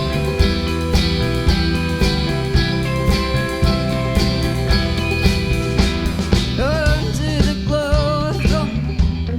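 Instrumental break in a goth-folk song played live: guitar and bass over a steady beat. A wavering melody line with heavy vibrato comes in about two-thirds of the way through.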